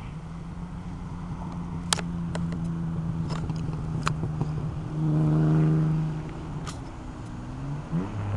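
A car engine running close by, a steady low hum that swells louder about five seconds in and drops in pitch near the end, with a few sharp clicks over it.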